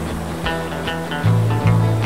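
Background music: plucked notes over a held bass note that steps up in pitch about a second in.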